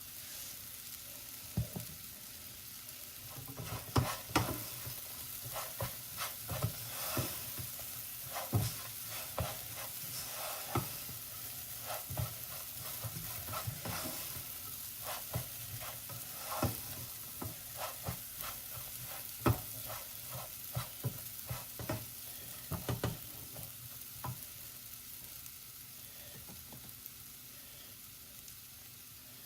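Basmati rice frying in butter in a pan, sizzling steadily, while it is stirred: irregular scrapes and knocks of the stirring utensil against the pan, thinning out over the last few seconds.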